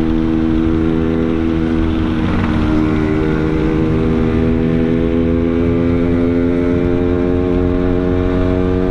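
Yamaha RX-King single-cylinder two-stroke motorcycle engine running at a steady cruising speed under way, with wind and road rumble.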